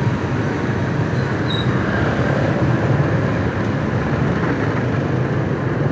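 Steady rumble of riding a motorbike through dense scooter traffic: the bike's own engine and road noise mixed with the scooters running around it.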